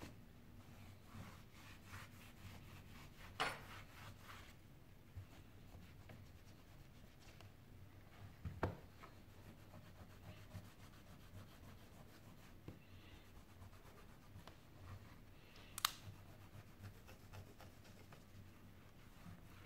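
Faint rubbing of a cloth over a smartphone's glass and frame as the newly fitted display is wiped and pressed down. Three short sharp clicks or taps come through, a few seconds in, near the middle and near the end; the last is the loudest.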